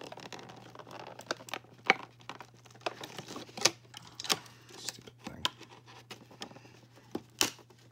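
Cardboard and plastic doll-box packaging being handled and worked open by hand: rustling and crinkling, with a handful of sharp clicks and taps scattered through.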